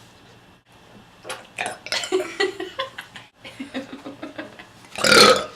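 A young woman burping up the gas from cola she has just chugged: a string of short throaty sounds after about a second, then one loud, rough burp near the end.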